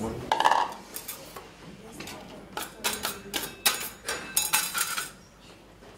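Kitchen utensils and bowls clattering on a stone worktop: a run of sharp clinks, knocks and short scrapes in irregular clusters, busiest from about the middle to near the end.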